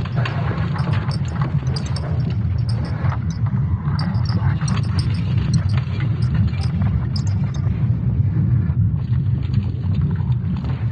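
Sonification of Earth's magnetic field, made from Swarm satellite magnetic signals converted into sound. It is a continuous deep rumble, with scattered crackles and creaking above it.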